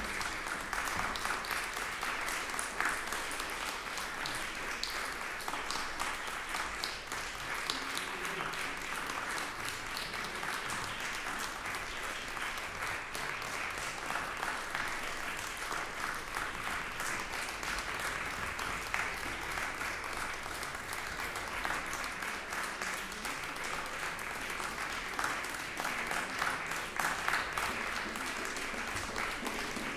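Concert audience applauding: many people clapping steadily, without a break.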